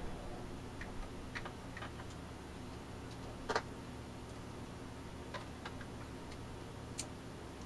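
Light, irregular clicks and taps from handling the small parts of a portable multitester, with one louder click about halfway through, over a low steady hum.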